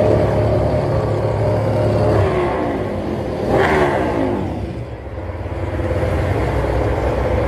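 MotoGP racing motorcycles running on the starting grid, with one bike riding close past about three and a half seconds in, its engine note sweeping in pitch as it goes by.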